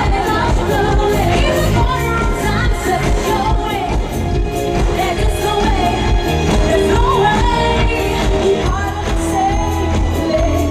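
Live amplified pop song: women singing into microphones over loud accompaniment with a steady bass beat.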